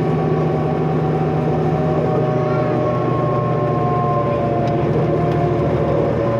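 Cummins ISL diesel engine of a 2005 New Flyer D40LF transit bus running under way, with a thin turbocharger whine above the engine drone; the pitch eases slowly downward in the second half.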